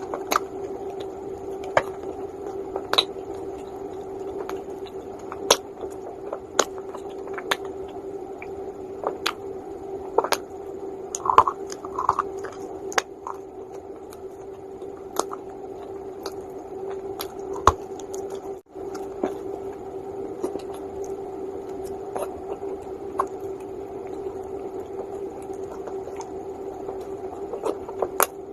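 Calabash clay (edible baked clay) being bitten and chewed close to the microphone: irregular sharp crunches and cracks, over a steady hum.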